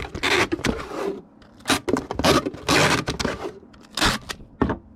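Packing noises: a cardboard shipping box and packing material being handled, a run of short scraping and rustling bursts.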